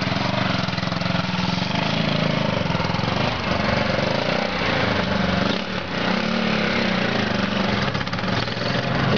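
A custom chopper motorcycle's engine running as the bike pulls away at low speed. Its pitch rises and falls a few times with the throttle.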